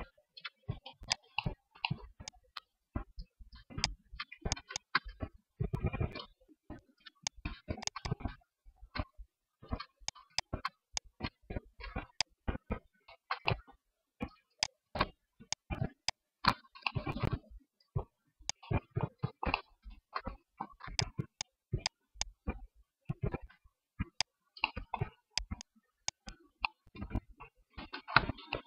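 Computer mouse buttons and keyboard keys clicking irregularly, several clicks a second, with a few denser runs of clicks.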